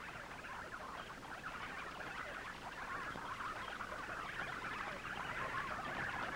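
A swarm of bats squeaking and chittering, a dense high-pitched chatter of countless tiny calls growing steadily louder as the swarm approaches.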